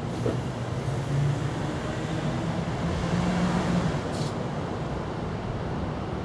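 Steady outdoor background rumble with a low hum that wavers in pitch during the first four seconds, and a brief rustle about four seconds in.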